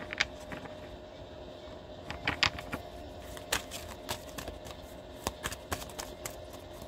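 Tarot cards being handled on a table: scattered, irregular light clicks and taps as cards are picked up, flipped and laid down, over a faint steady hum.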